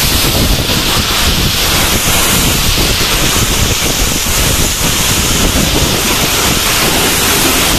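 Strong storm wind buffeting the phone's microphone, over the hiss of heavy wind-driven rain: a loud, steady wash of noise with a ragged rumble underneath.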